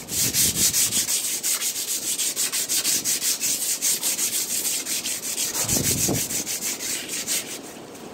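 Sandpaper rubbed by hand against a rusty chrome exhaust tip to take the rust off, a quick scratchy rasping at about five strokes a second that stops shortly before the end.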